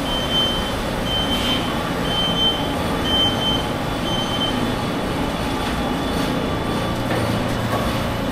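Steady hum and whir of circuit-board assembly machines running, with a high electronic beep repeating about once a second that stops about four and a half seconds in.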